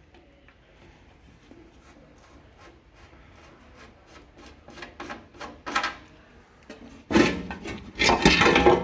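Metal parts being handled at the lathe: faint rubbing and scraping with scattered clicks, turning into loud scraping and clattering about seven seconds in.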